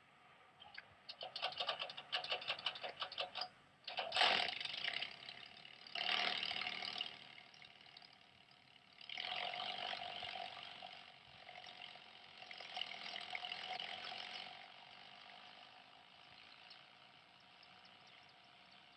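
Small bubble-canopy helicopter's piston engine and rotor rattling, in several bursts that come and go. The first is a fast rattle lasting about two seconds, and a sharper loud burst follows a moment later.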